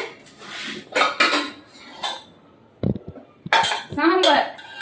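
Metal kitchen pot and serving spoon clattering and clinking as food is served out, with a dull thump about three seconds in.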